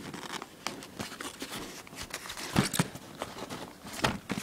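Packaging being handled: scattered clicks and knocks with some rustling and crinkling, the loudest pair of knocks about two and a half seconds in and another near the end.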